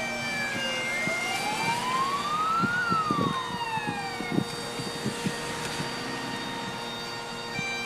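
Emergency-vehicle siren on a slow wail: it falls, rises once more and falls again, then cuts off about four and a half seconds in. Underneath is the hiss of cars passing on the wet road.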